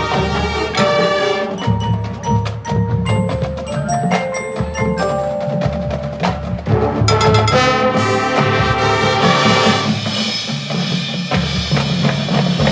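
Marching band music: the percussion section playing struck mallet-instrument notes over drums, with the texture growing fuller and denser about seven seconds in.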